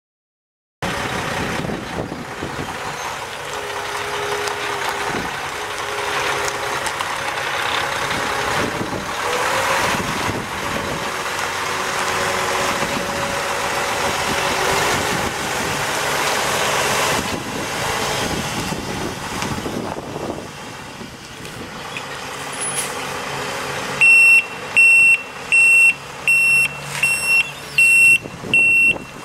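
Mack E7 12-litre inline-six diesel of a 2005 Mack CHN613 semi tractor running as the truck drives, its engine pitch rising and falling. About 24 seconds in, a loud back-up alarm starts beeping roughly once a second as the truck reverses.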